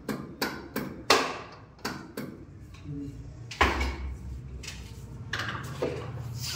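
A string of sharp, irregular knocks and taps from hand tools against a wall and the scaffold during plaster ceiling work, with a heavier thud a little past halfway, over a low steady hum.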